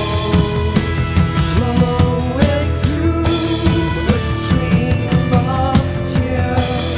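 Rock band playing live: drum kit with repeated cymbal crashes under bass and sustained, bending melodic lead lines, with no clear lyrics.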